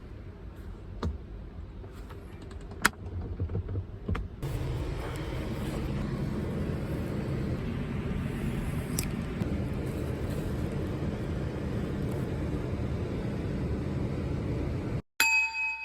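Subaru Sambar Dias Wagon kei van under way: a low rumble with a few sharp clicks, then from about four seconds in steady running and road noise that cuts off suddenly near the end. A short ringing tone follows.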